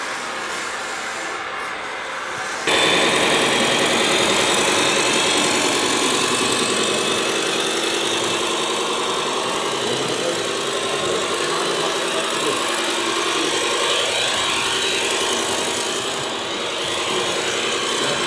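Radio-controlled model trucks and machinery running, with a steady mix of motor and gear whine. The sound steps up sharply about three seconds in, and there are rising and falling whines near the end as a truck moves.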